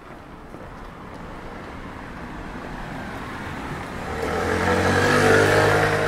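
A motor vehicle approaching and passing close by, its engine growing steadily louder to a peak about five seconds in, then beginning to fade.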